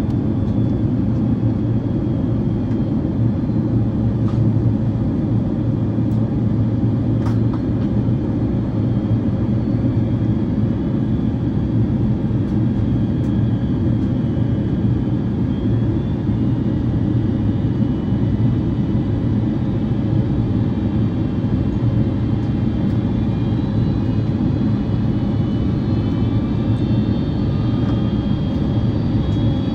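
Steady cabin roar inside a Boeing 767-400 airliner: noise from the jet engines and the air rushing past, with a faint high whine that wavers in pitch in the second half.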